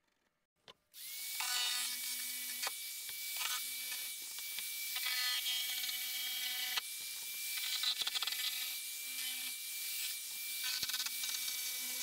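Handheld power tool with an electric motor working on a plywood panel, starting about a second in and running continuously at a steady pitch, with its load changing as it goes.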